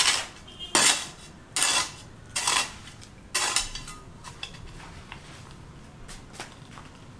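A series of sharp clinks of hard objects striking each other: five strong ones at an even pace, about one every 0.8 s, then a few fainter ticks.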